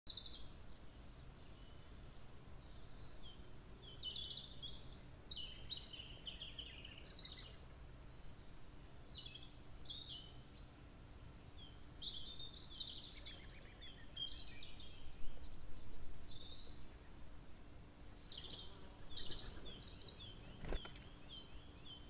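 Several songbirds singing and calling, a dense run of short, high, twittering phrases that overlap one another. A faint steady hum runs underneath, and a single sharp click comes near the end.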